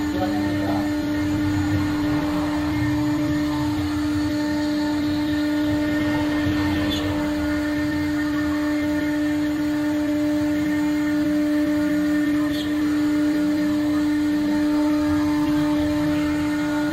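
CNC router spindle running at a constant high speed while its bit cuts through a 10 mm sheet. A steady, unchanging whine sits over a rough low rumble of cutting.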